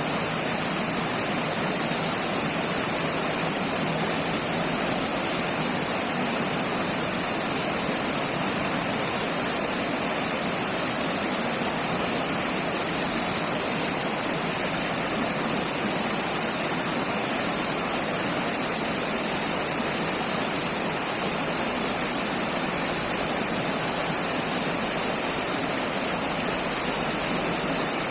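River water rushing and splashing steadily, a constant even rush with no breaks.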